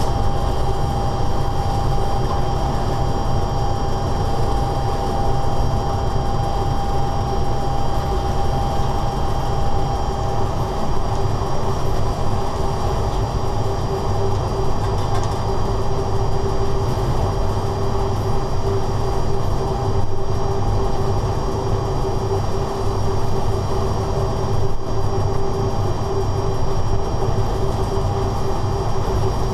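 Cab noise of a Bulgarian class 45 electric locomotive running at speed: a steady low rumble of wheels on track with a continuous humming tone that drops lower and grows stronger about halfway through.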